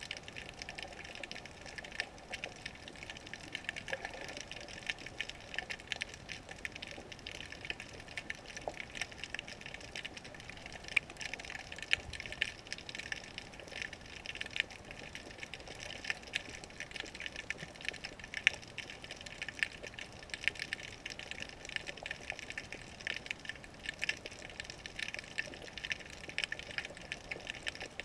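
Underwater ambience picked up by a GoPro in its waterproof housing: a dense, continuous crackle of small irregular clicks, with louder sharp clicks scattered throughout.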